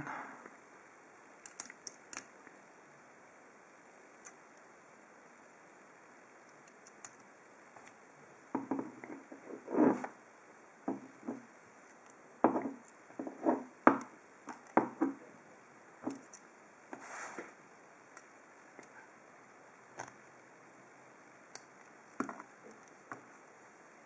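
Small metal clicks and scrapes of pliers working at the back of a pin-tumbler lock cylinder's plug as it is taken apart. The clicks come in scattered bunches, busiest through the middle.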